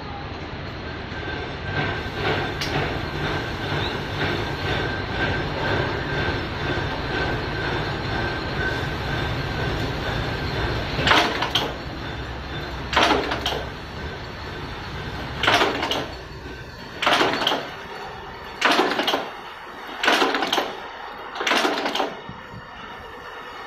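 Automatic riveting machine running with a steady hum and a thin whine, with light ticks. About halfway through, a series of about seven short, loud, noisy rattles begins, roughly every one and a half seconds. The low hum dies away part way through them.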